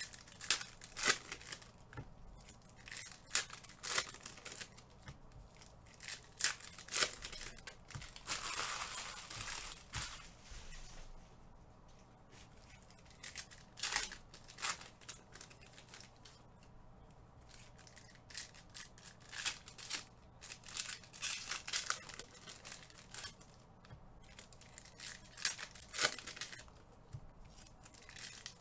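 Trading card pack wrappers being torn open and crinkled by hand, with irregular sharp crackles and snaps of cards and wrapper. There is one longer tearing sound about eight seconds in.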